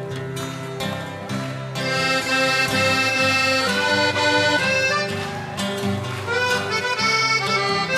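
Film soundtrack music: short strummed chords at first, then a melody of held notes comes in about two seconds in.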